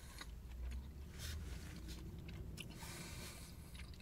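A person chewing a mouthful of meat lovers poutine with sriracha (fries, cheese curds, gravy, burger and bacon). It is faint, with small wet mouth clicks over a low steady hum.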